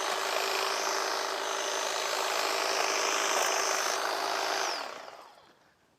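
Toro Flex Force 60-volt battery hedge trimmer running steadily as it cuts through a bush. Its motor slows and stops about five seconds in.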